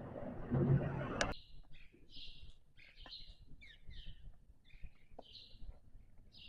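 Birds chirping in short, high calls, two or three a second. They follow about a second of rushing noise that cuts off abruptly.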